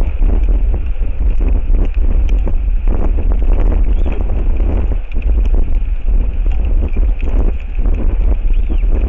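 Strong gusty wind buffeting the microphone: a heavy, continuous low rumble with irregular crackling.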